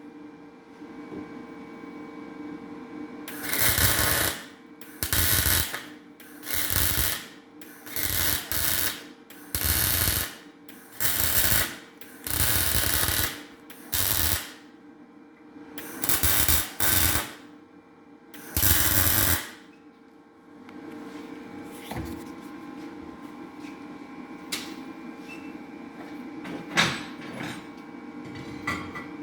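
A shop tool runs in about a dozen short, loud bursts, each under a second to about a second long, while valve seats are being taken out of a cylinder head. Near the end it gives way to a few light clicks over a steady hum.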